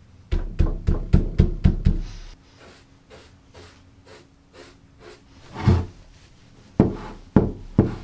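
Steel hammer head tapping a wooden workbench top, about seven quick blows at roughly four a second. Lighter, even strokes follow, and then a few single knocks near the end.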